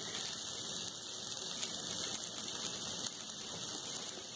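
Steady sizzle of oil in a frying pan, with crumbled boiled potatoes frying among onions and spices.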